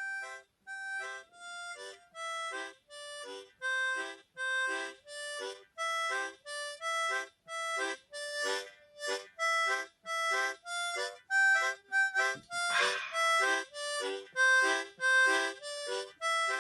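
Background music: a steady run of short, evenly spaced notes, about two a second, with a brief noisier swell about thirteen seconds in.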